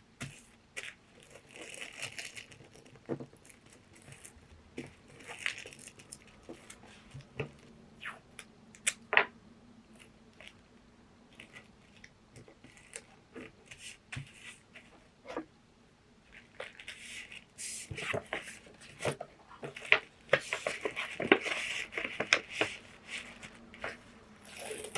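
Paper packaging being handled at close range: crinkling, rustling and tearing, with scattered taps and clicks, getting busier in the last third.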